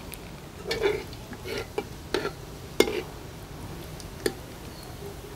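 A steel spoon clinking and scraping against a small steel bowl and the rim of an iron karahi as cumin seeds are spooned into hot oil, the first step of a tadka. About half a dozen sharp clinks, mostly in the first three seconds, with one more about four seconds in.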